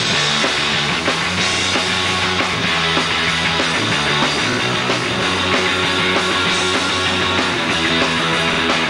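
A punk rock band playing live: electric guitars, bass and drums.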